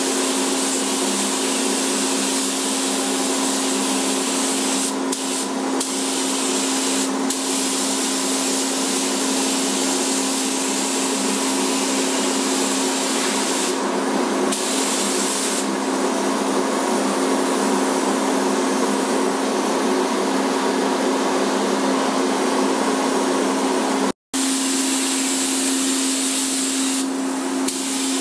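Steady rush of air with a constant hum from the paint booth's ventilation, and a gravity-feed paint spray gun hissing as it sprays paint, growing brighter in short spells while the trigger is pulled.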